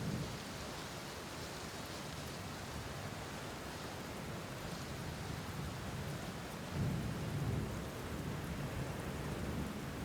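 Steady rain falling, with a low rumble of thunder about seven seconds in.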